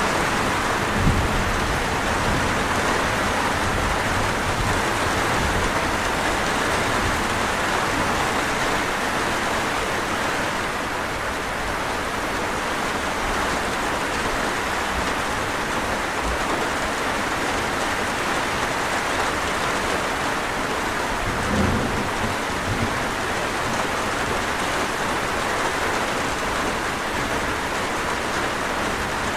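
Heavy, steady rain falling, with brief low rumbles of thunder about a second in and again around two-thirds of the way through.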